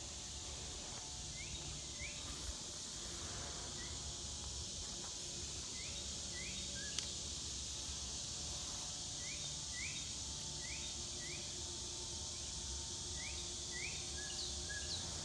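Outdoor ambience of steady insect buzzing, with a bird repeating a pair of short rising chirps every few seconds and a single sharp click about halfway through.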